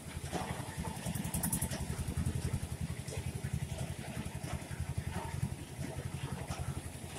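An engine idling: a steady, rapid low throb.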